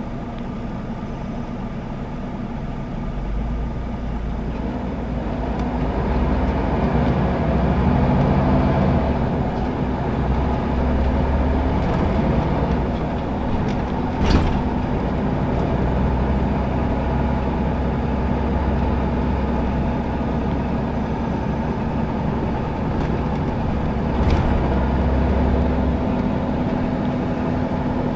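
Scania L94UB city bus heard from inside the cabin on the move: its nine-litre five-cylinder diesel engine note rises as the bus accelerates, then holds steady at road speed over tyre and body noise. A sharp knock comes about halfway through, and a weaker one later.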